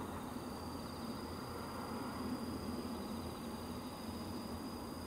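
Insect trilling: one steady high-pitched trill over a low background rumble.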